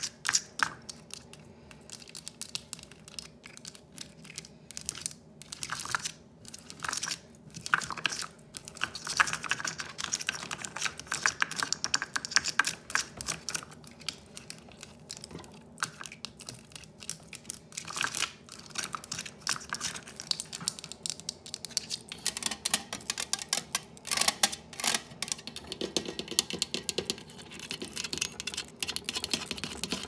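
Fast, aggressive close-up tapping on Christmas decorations: dense, rapid clicking taps in uneven flurries.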